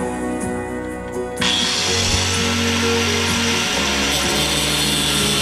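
Angle grinder cutting through steel angle iron, a loud, steady grinding hiss that starts abruptly about a second and a half in. This is the grinder finishing a 45-degree cut that the saw blade was too small to get through.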